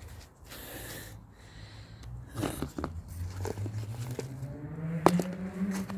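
Soft scraping and crunching handling noises with a sharp click about five seconds in, over a faint low hum that rises slightly in pitch in the second half.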